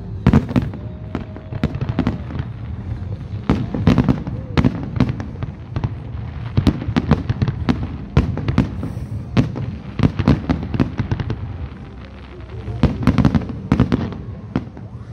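Fireworks display: a continuous barrage of aerial shell bursts, bangs and crackles, several each second, easing briefly about twelve seconds in before picking up again.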